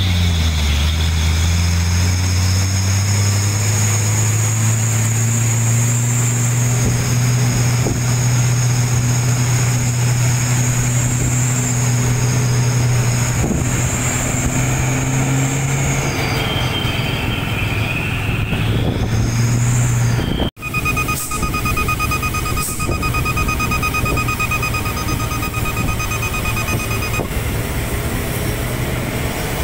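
Heavy truck's diesel engine running steadily and loudly at close range, with high whining tones over the drone. About two-thirds of the way through it cuts off abruptly, giving way to wind and road rumble with a steady electronic beeping that stops near the end.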